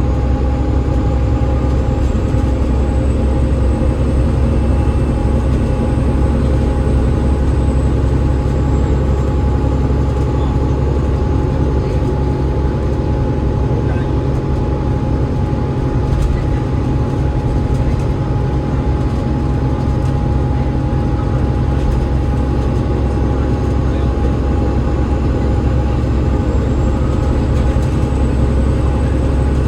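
Double-decker bus with a Cummins ISL8.9 diesel and ZF EcoLife six-speed automatic gearbox running at a steady cruise: a heavy low rumble of engine and road noise, with a steady whine over it. A faint high whistle slowly rises and falls early on and again near the end.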